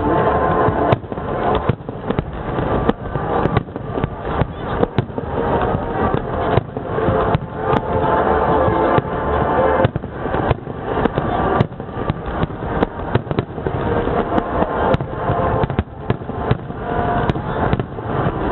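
Large aerial fireworks display firing a dense barrage: shell bursts and crackling follow one another in quick, irregular succession. Music plays underneath.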